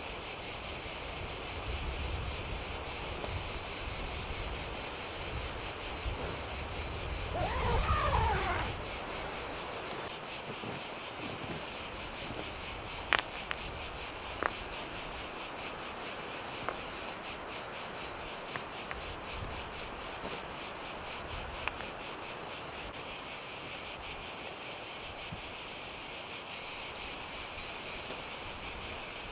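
Steady, shrill chorus of insects in the forest, a dense high buzz with a fine fast pulse. A short warbling call rises and falls about eight seconds in, and a couple of sharp clicks come around the middle.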